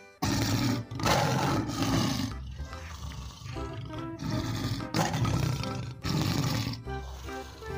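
Lion roaring in several loud, rough bursts, each about a second long, over light background music.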